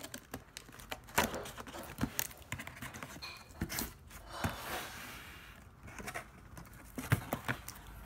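Cardboard box being opened by hand: the tuck-in lid flap is pulled free and swung open. It gives a string of irregular taps and knocks, with a longer stretch of scraping and rustling near the middle.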